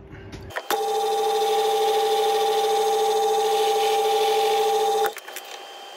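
Small metal lathe switched on with a click and running with a steady hum and hiss while facing the end of a steel grub screw held in the three-jaw chuck, then cut off abruptly about five seconds in.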